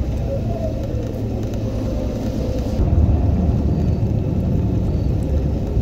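Steady low rumble of a vehicle driving, heard from on board.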